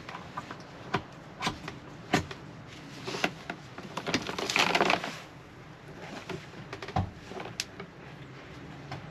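Scattered knocks and clicks of hand work on materials, with a short scraping rub about four and a half seconds in.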